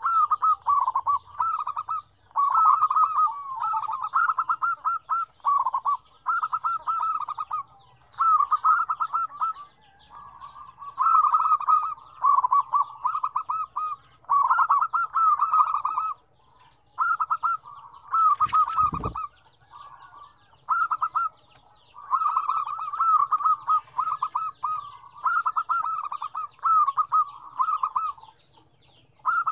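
Several zebra doves (perkutut) cooing, with rapid trilling phrases of about a second each, one after another with short gaps and at times overlapping. A single sharp thump sounds about two-thirds of the way through.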